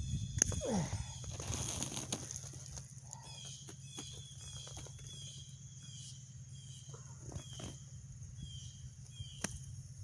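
Rustling and a few sharp clicks of grapevine canes being handled and cut for cuttings, with a small bird chirping over and over: short high notes about twice a second from about three seconds in. A steady low hum lies underneath.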